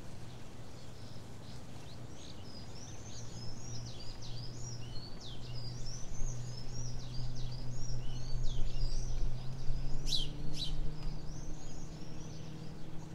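Small birds twittering busily in quick, high chirps, with two sharp, louder chirps about ten seconds in. Under them runs the low, steady drone of a passing boat's engine, which rises a little in pitch near the end.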